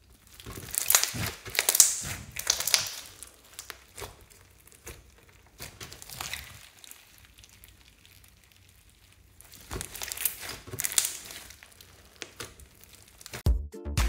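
Hands squeezing and stretching a mass of slime mixed with foam beads, heard as several irregular bursts of sticky crackling noise with quiet stretches between. Electronic dance music starts near the end.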